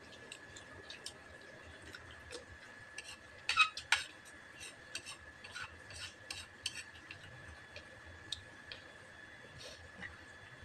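Spoons clinking and scraping against a ceramic plate while eating, in scattered light clicks with a cluster of louder clinks about three and a half seconds in.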